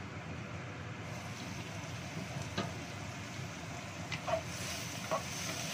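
Carrots and shallots frying in a nonstick wok under a steady hiss, with a few knocks as a wooden spatula stirs them against the pan. The sizzle grows brighter near the end.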